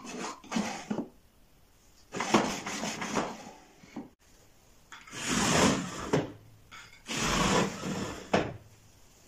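Thin wooden drawers sliding in and out of a small wooden drawer cabinet, then a slatted wooden tambour door sliding along its track. There are about four separate slides of wood rubbing on wood, and the last ends in a sharp knock.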